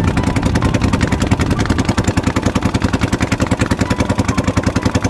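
A small engine running steadily at a fast, even beat.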